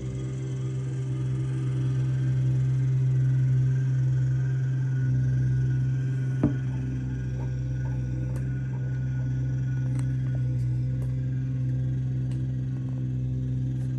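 A small stand-on compact track loader's engine running steadily under load, with a sharp clank about halfway through.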